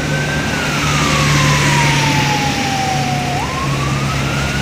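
A siren wailing in a slow rise and fall. It slides down over about three seconds, then jumps up and climbs again near the end, over a steady low engine hum.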